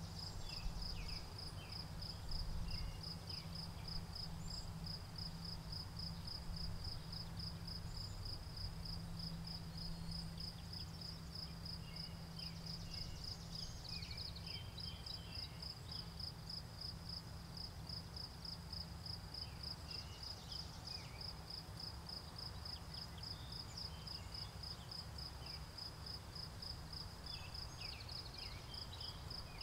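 Crickets chirping in a steady, even pulse, with short bird chirps now and then and a low rumble underneath.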